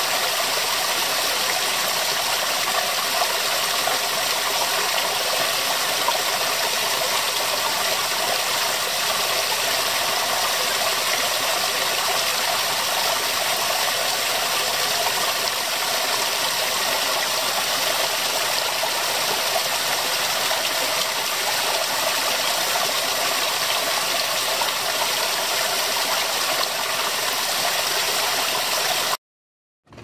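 Small waterfall of several thin streams spilling over mossy rocks and splashing into a pool: a steady rush of falling water that cuts off suddenly near the end.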